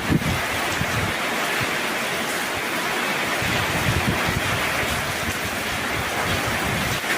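Heavy rain falling steadily, with gusts of strong wind buffeting the microphone at the start and again in the second half.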